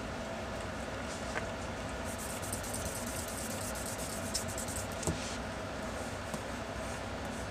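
Steady low background rumble with a run of quick, light scratchy strokes about two to five seconds in: pencil lines being sketched on paper.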